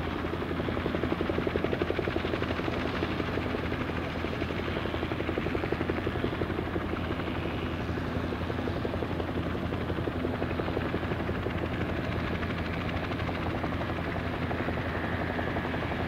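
Bell 212 helicopter in flight on approach: the steady, rapid beat of its two-bladed main rotor over the sound of its twin turbine engines, with a faint higher whine coming up near the end.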